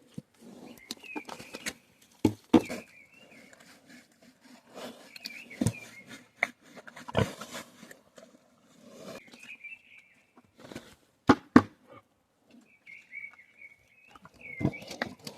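Pigs rooting through straw bedding with low grunts and scattered sharp knocks and snuffles, while small birds chirp now and then.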